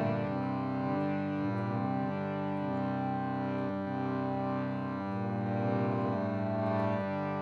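Harmonium playing a slow melody over a held drone note, with no singing yet.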